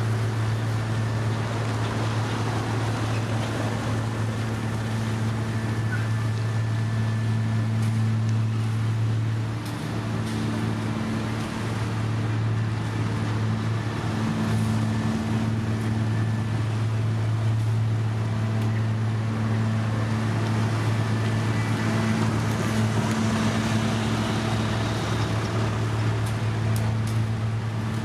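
Diesel engine of heavy asphalt-paving machinery running at a steady speed, a constant low hum over mechanical noise, dipping slightly about ten seconds in.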